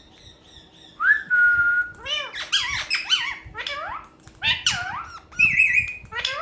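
Talking parrot mimicking a cat: one whistle that rises and then holds for most of a second, then a string of short meow-like calls, each rising and falling in pitch, with a wavering whistle near the end.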